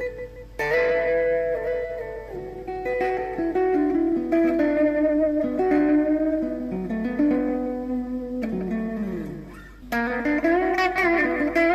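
Electric guitar played through a Mayatone EM-505 tape echo unit in a sound test: sustained single-note lines. About nine seconds in, a phrase slides down in pitch and dips briefly before the playing resumes.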